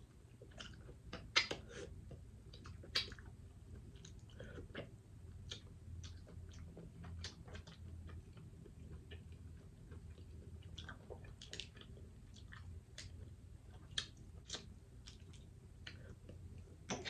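Close-miked chewing and biting: a person eating seafood, with irregular wet mouth smacks and clicks, two of them louder a little over a second in and about three seconds in.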